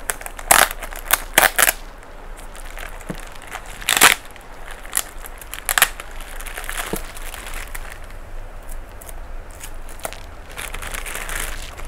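Clear plastic wrapping crinkling and crackling as hands handle it and pull it off a car stereo unit. There are sharp crackles in the first two seconds and again around four to six seconds, and a softer, steadier crinkling near the end.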